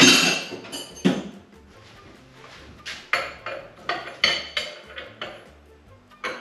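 Steel wrenches clanking and clinking: a loud clank as a wrench is pulled from a tool cart, then a run of smaller metallic clicks as a combination wrench is set on and worked around a pipe fitting held in a bench vise.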